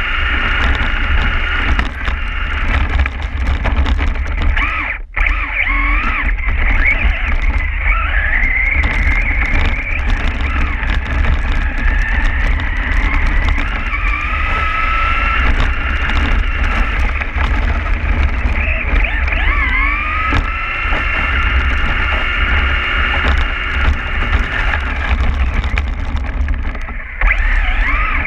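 Electric RC truck's motor and gears whining from on board, the whine rising and falling in pitch as the throttle changes, over a steady low rumble of wind and tyres on wet slush.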